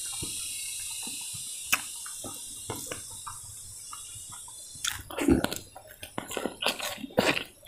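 Close-up eating sounds: a person chewing crab and crispy rice, with wet mouth clicks and smacks. The chewing gets busier and louder about five seconds in.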